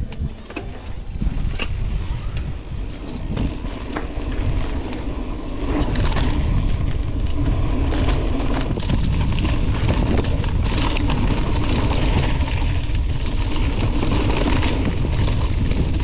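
Wind buffeting the microphone as a mountain bike is ridden, with a few clicks and knocks from the bike. The wind gets louder about six seconds in and then holds steady.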